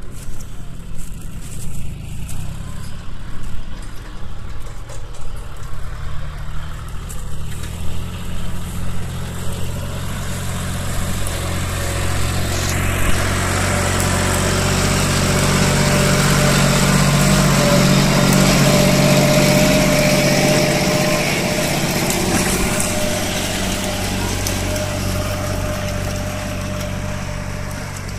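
John Deere 5310 tractor's three-cylinder diesel engine running under load as it pulls a hydraulic disc harrow through the soil. It grows louder as the tractor comes close about halfway through, then eases off toward the end.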